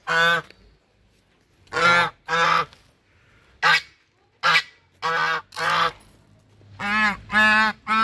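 Chinese geese honking: about ten loud, nasal honks, most of them in quick pairs, with short pauses between.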